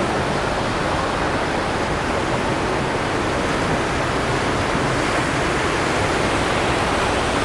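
Ocean surf washing against a rocky shore, a steady rushing noise that holds at the same level throughout.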